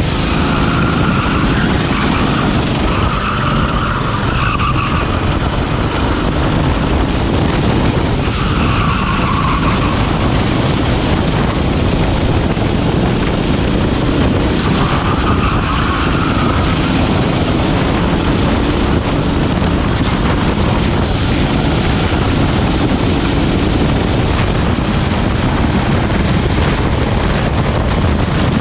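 Go-kart engine running hard at racing speed, heard onboard under a heavy rush of wind on the microphone, with brief tyre squeals four times in the first half.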